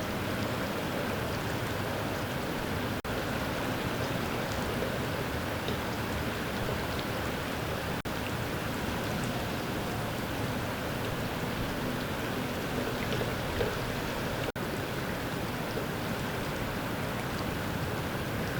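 Steady rushing noise of rain and running floodwater. It cuts out briefly three times.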